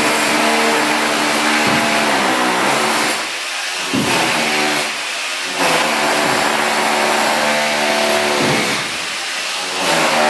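Electric motor of a power tool running in long bursts, its pitch sagging once under load, with short breaks between bursts.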